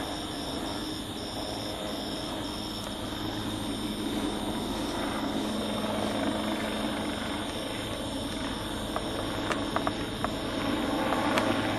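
Helicopter flying overhead, a steady drone of rotor and engine. A few sharp clicks come near the end.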